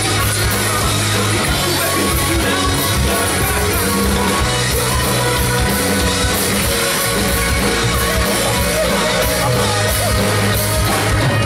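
Live pop-rock band playing through a PA: a lead voice singing over electric bass, electric guitar, drum kit and keyboard.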